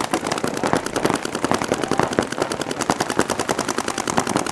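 Paintball markers firing in rapid streams: a dense, steady run of sharp pops, many shots a second, with no break.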